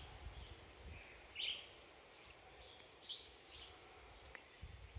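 Faint rainforest ambience: a steady high insect drone with a few short chirps, the clearest about one and a half seconds in and again about three seconds in.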